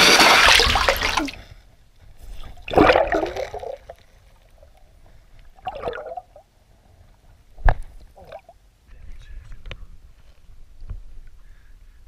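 Water sloshing and gurgling around a camera held under the surface of a shallow pool: a loud rush of water in the first second, then a few separate muffled sloshes and one sharp knock.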